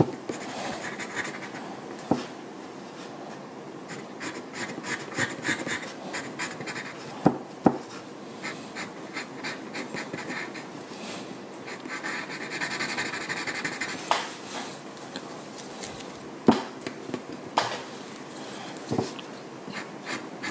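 Graphite pencil (3B) hatching on drawing paper: a steady run of quick, short scratchy strokes, with a few sharper ticks of the pencil against the paper.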